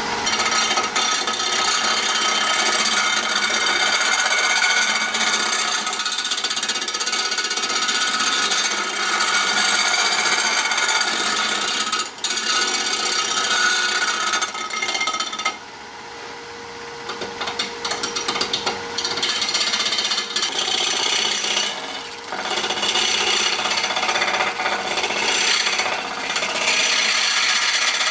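Lathe gouge cutting a spinning resin-and-burl hybrid blank: a loud, steady scraping hiss of the cut. About halfway through, the tool lifts off for a few seconds, leaving only the lathe's quieter steady hum, and then the cutting starts again.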